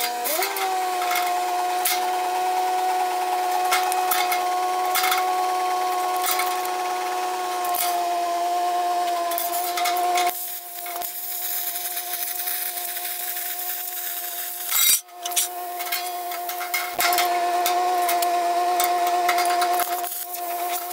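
Plasma cutter cutting steel sheet: a steady hissing whine with a high tone. It cuts out briefly about fifteen seconds in and then starts again.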